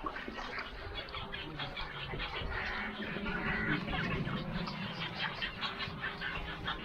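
A nesting colony of water birds calling together, a dense chatter of many short overlapping calls.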